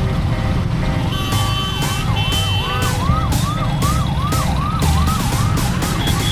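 Emergency vehicle siren in fast yelp mode, rising sweeps repeating about two and a half times a second, starting about a second in, over the steady low rumble of the ride.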